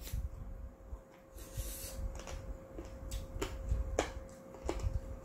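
Eating sounds from a person chewing a noodle dish close to the microphone: a run of short wet smacks and clicks, more of them in the second half, with a brief hiss about a second and a half in. A faint steady hum runs underneath.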